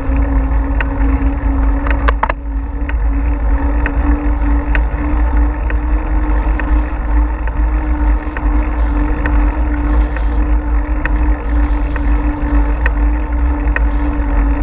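Wind buffeting the microphone of a bike-mounted action camera while riding, with tyre and road noise and a steady hum running underneath. Occasional light clicks and ticks from the bike or mount over bumps.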